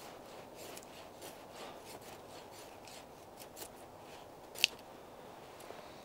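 Finnish-type knife (finka) shaving a thin wooden stick: a rapid run of short scraping cuts as the blade takes off curls, with one sharp click about four and a half seconds in.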